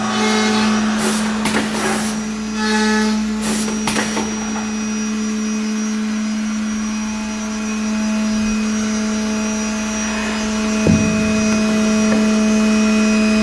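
Accu-Systems HPJ-7 CNC bore, glue and dowel inserter running a cycle: a steady hum, with sharp clicks and short hisses over the first few seconds and a single knock about eleven seconds in.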